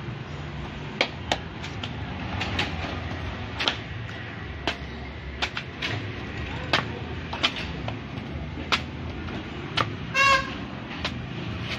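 Machete chopping the husk of a young green coconut held on a wooden block: about a dozen sharp chops at an uneven pace. About ten seconds in, a short horn toot is the loudest sound.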